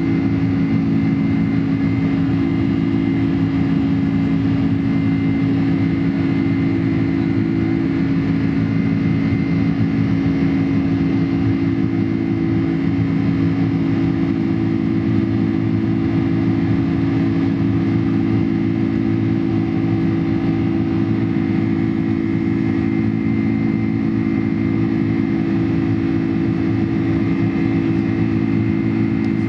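Boeing 747-400's four jet engines and the airflow past the fuselage, heard inside the passenger cabin as a steady drone while the airliner climbs after takeoff. Several steady low hums sit under the rushing noise, with a thin high whine above.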